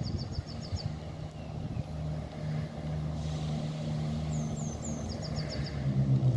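A train's engine running with a steady hum, joined about six seconds in by a deeper, louder note as the sound builds.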